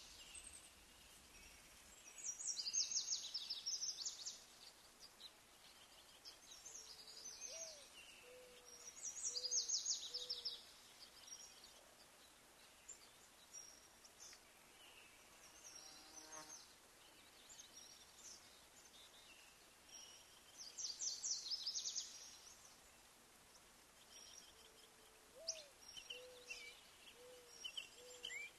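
Faint night-time ambience: bursts of fast, high chirping trills every several seconds, each lasting about two seconds, and a soft, low hooting call of a few short notes heard twice.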